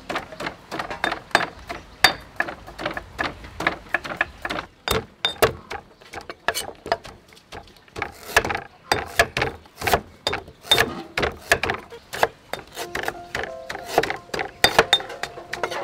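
Knife chopping on a wooden cutting board, mixed with a pestle pounding in a mortar: a quick, irregular run of knocks, several a second.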